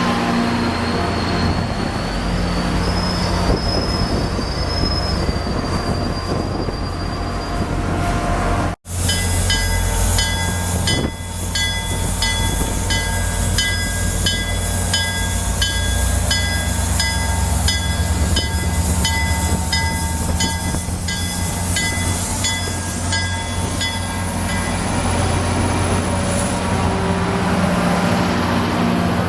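Train locomotive running with a steady low rumble; after a short break about nine seconds in, its bell rings steadily, about one and a half strokes a second, for some fifteen seconds.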